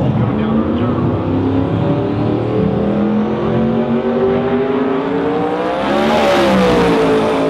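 Twin-turbo Pontiac Firebird drag car's engine running hard, its pitch climbing steadily as the car leaves the starting line. About six seconds in it goes past loudly with a rush of noise, and the pitch then falls away.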